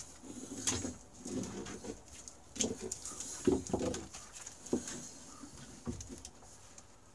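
A man's straining grunts and effort noises while lifting a snowmobile engine by hand, mixed with a few sharp knocks as the engine is handled and set down on a board.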